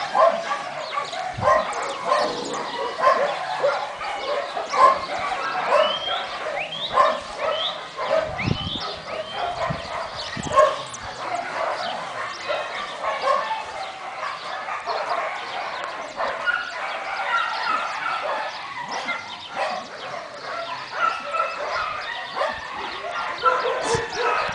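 Dogs barking and yipping without a break in an overlapping chorus, with a few high rising yelps about six to seven seconds in.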